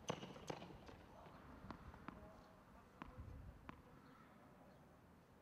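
Faint, scattered taps of tennis play on a hard court: sneaker footsteps and distant ball contacts, about six light taps over the first four seconds, the first the strongest.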